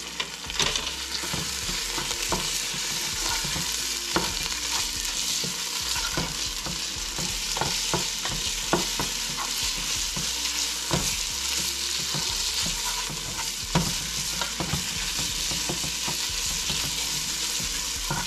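Minced lean pork stir-frying in hot oil in a pan: a steady sizzle with irregular knocks and scrapes of the stirring utensil against the pan.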